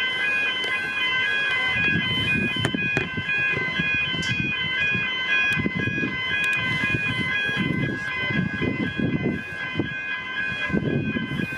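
Level crossing warning bells ringing rapidly and without a break as the crossing is held down for an approaching train. A low, uneven rumble starts underneath about two seconds in.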